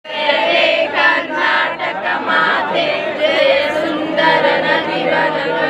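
A large group of students, mostly young women's voices, singing a Kannada song together in unison.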